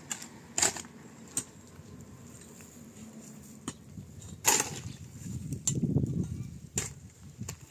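Irregular knocks and clicks, about seven of them spread unevenly, the loudest about four and a half seconds in, with a low rumble around six seconds in.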